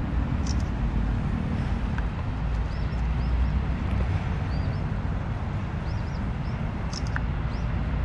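Steady low outdoor rumble, like distant city traffic or wind on the microphone, with short, high rising bird chirps every second or so.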